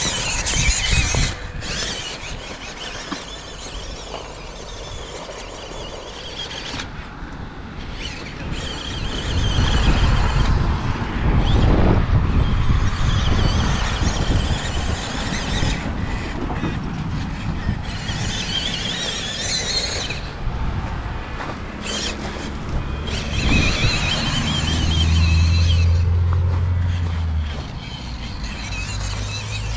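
1/12-scale MN Models RC crawler driving over loose gravel: its small electric motor and gears whine, the pitch rising and falling as the throttle changes, over the crunch of gravel under the tyres.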